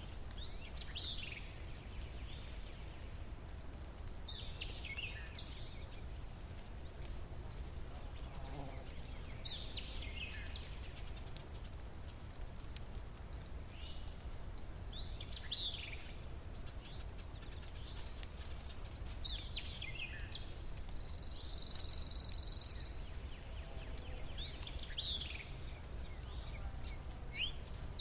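Outdoor ambience with a bird repeating a short falling call about every four to five seconds over steady low background noise. A brief buzzing note sounds a little after the middle.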